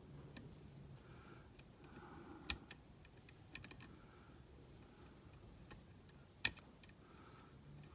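Scattered light clicks and taps from handling soldering tools and the control board while soldering, with two sharper knocks about two and a half and six and a half seconds in.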